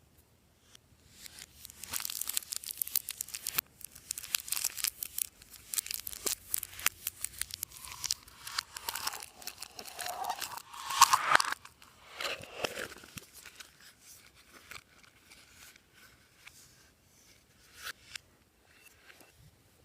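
Clear slime being worked by hand: dense sticky crackling and tearing sounds as it is stretched and pressed, with a few short squeaks near the middle, thinning to scattered pops near the end.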